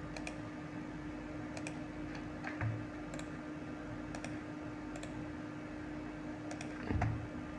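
Sparse faint computer mouse clicks, several in quick pairs, over a steady low electrical hum, with a soft low thump about a third of the way in and a louder one near the end.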